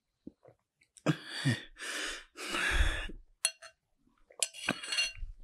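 A man being spoon-fed breathes heavily and coughs over a second or two. Then a metal spoon clinks against a bowl a couple of times.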